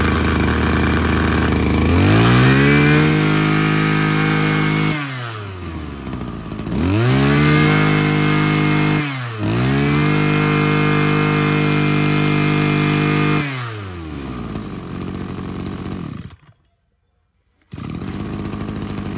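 Mitsubishi TU26 brush cutter's small two-stroke engine idling, then revved to a high whine and held for a few seconds three times, each time falling back to idle. Near the end the sound cuts out for about a second and a steady running sound resumes.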